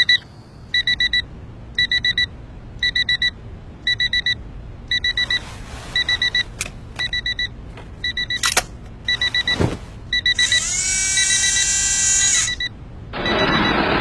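Digital alarm clock beeping in quick groups of four, about once a second. A sharp click comes just past the middle, then a loud mechanical whir with a falling whine runs for about two seconds, and a rushing noise follows near the end.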